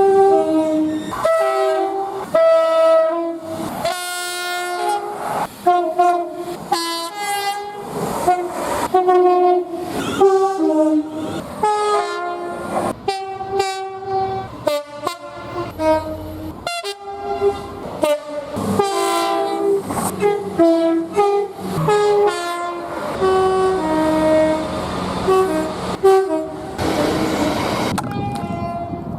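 Locomotive air horns sounding a long string of short multi-note chord blasts, one clip cut straight into the next with different horns and pitches. Near the end a train's rushing wheel-and-rail noise comes up under the horn.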